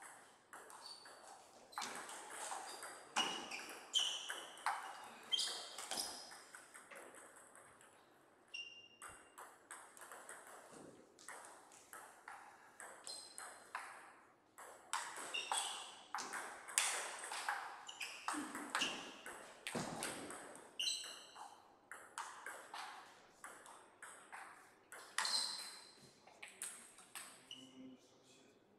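Table tennis rallies: the ball clicking sharply back and forth off the rubber-faced paddles and bouncing on the table. Two points are played, with short lulls between rallies.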